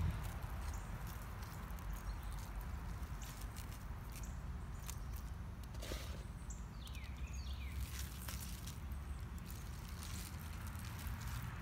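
Crushed eggshell sprinkled by hand onto potting soil and plastic tubs: light, scattered ticks and patter over a steady low rumble.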